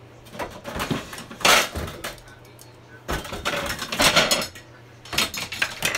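Metal cooking pot and its lid being handled: several clanks and knocks as the lid is set on and the pot is moved, the loudest about a second and a half in and again around four seconds in.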